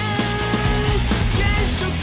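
Background music: a rock-style track with guitar and a steady bass line.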